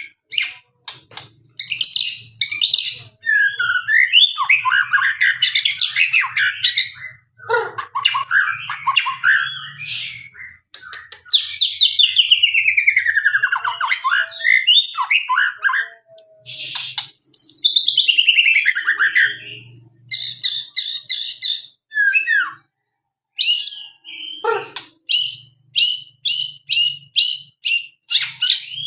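A murai songbird singing a long, varied song: chirps, whistled phrases that sweep down in pitch, and fast runs of repeated notes, broken by short pauses.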